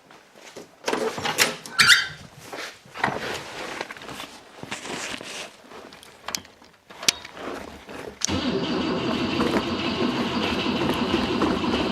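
A few clicks and clunks, then about eight seconds in a car starter starts cranking the engine over steadily on a fresh battery without it catching: the engine has sat so long that fuel has not yet reached it.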